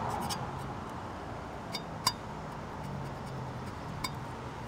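A few light clicks and taps of a marker against the engine's metal bracket while writing, the loudest about two seconds in, over a steady low background hum.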